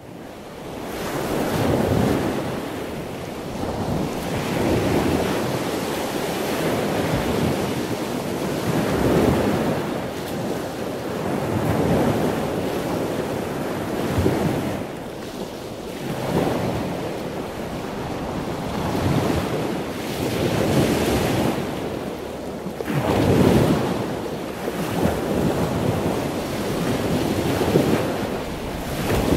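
Wind buffeting the microphone over the rush of choppy sea water alongside a boat, swelling and easing every two to three seconds.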